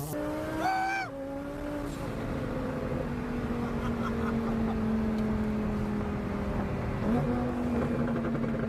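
Twin-turbo Lamborghini Huracan's V10 engine running on the move: a brief rise in pitch about a second in, then a steady engine note easing slowly lower, with a short pitch change near the end.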